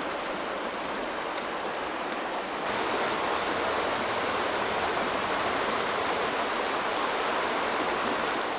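River water rushing steadily, becoming a little louder and fuller about three seconds in.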